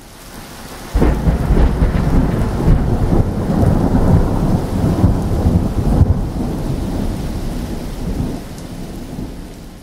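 A loud low rumble that starts suddenly about a second in, rolls on with swelling peaks for several seconds, then slowly dies away.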